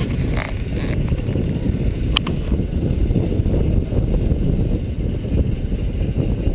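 Passenger train rolling along the track: a steady low rumble of the wheels on the rails, with a sharp click about two seconds in.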